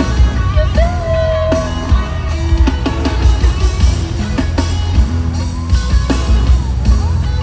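Loud music with a heavy, steady bass beat and a long held note starting about a second in.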